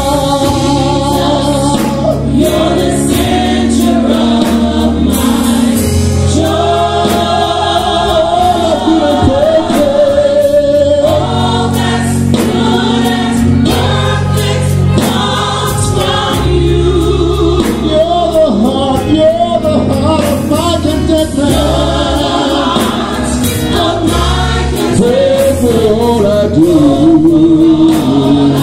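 Gospel praise song sung by a male lead singer with a group of women backing singers, continuous and loud.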